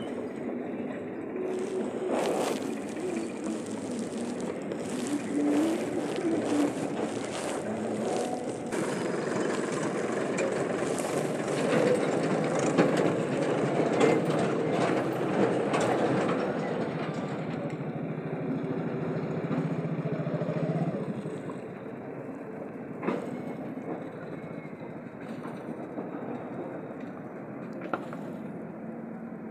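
Road vehicles crossing a railway level crossing: engine and tyre noise with many clicks and knocks as they bump over the rails. It builds to a peak about halfway through and falls away sharply a little past two-thirds of the way in.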